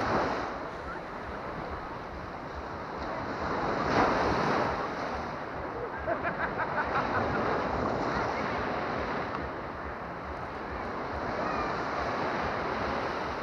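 Small Baltic Sea waves breaking and washing up the sand at the water's edge, with wind on the microphone. The surf swells loudest at the start and about four seconds in.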